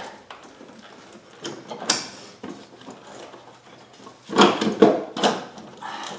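Hand work on metal and plastic parts around an ABS pump bracket and brake lines in a car's engine bay: scattered clicks and knocks, one sharp knock about two seconds in, and a louder cluster of knocks and scrapes between about four and five and a half seconds in.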